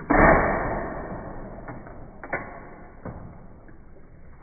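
Watermelon Smash toy's plastic watermelon being pressed down: a sharp click, then a loud rushing splash as it cracks open and water spills out, fading over about a second and a half. Two more smaller clicks follow.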